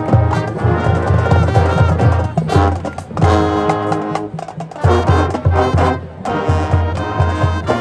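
High school marching band playing: brass melody with trumpets and trombones over a steady pounding drum beat.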